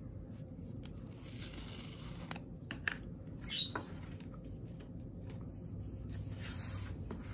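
Soft rustling of packaging as small items such as sticker freebies are handled, with a few light clicks near the middle.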